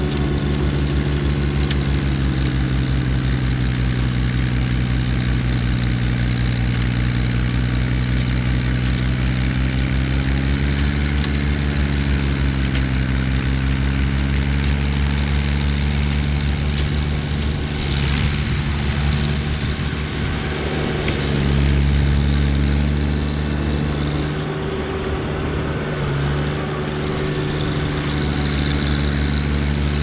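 Mahindra eMax 20S HST compact tractor's diesel engine running steadily at working revs while driving a snowblower that is throwing snow. The engine note sags briefly about a third of the way in, then steadies.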